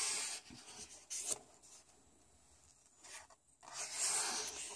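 Paper rubbing and rustling as a coloring book's pages are handled and a page is turned over. There is a quiet stretch in the middle and more rustling near the end.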